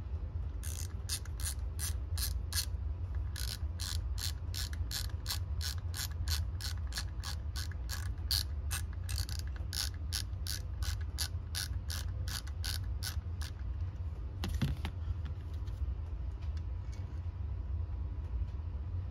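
A ratchet clicking in a steady run of about three sharp clicks a second while the through-bolts that hold the two halves of an alternator case together are run in. The clicking stops about 13 seconds in, with one more click a second later.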